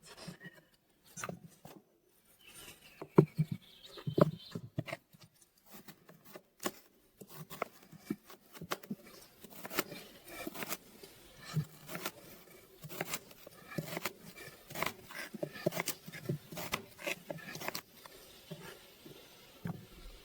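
Knife cutting fresh rhubarb stalks into short pieces on a cutting board: a run of crisp chops and knocks, a few scattered at first, then coming steadily about one or two a second.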